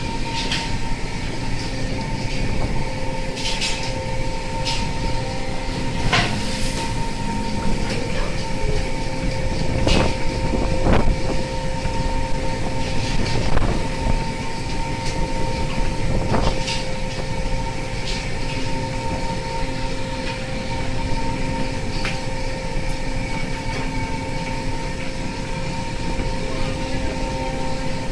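Fishing boat's engine and deck machinery running with a steady rumble and a constant hum, broken by irregular sharp metallic knocks and clanks.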